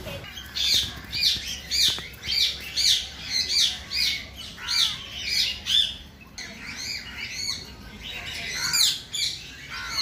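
Palm squirrel giving its repeated high chirping call, about two chirps a second, breaking off around six seconds in and starting again near the end.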